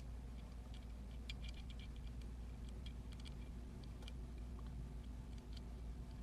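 Faint, irregular small clicks and ticks of a lock pick working the pin stacks of an Emhart lock, in little clusters, over a low steady hum.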